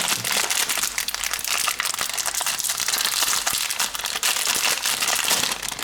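Plastic packaging crinkling and rustling continuously as it is handled, with many small crackles.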